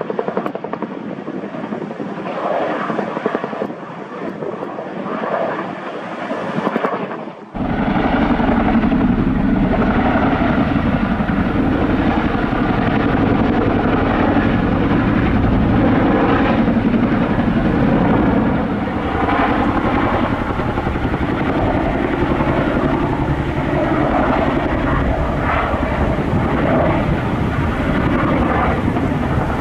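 CH-47 Chinook tandem-rotor helicopter flying past, its engines and twin rotors making a loud, steady drone. About seven seconds in the sound abruptly becomes louder and much deeper, and stays that way.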